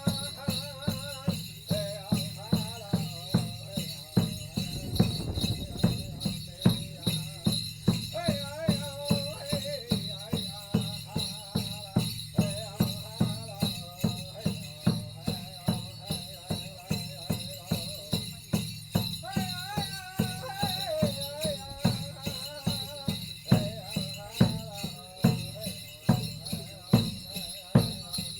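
A drum beaten steadily about twice a second under a man's wavering chant-like singing, with a continuous shimmer of metal jingles.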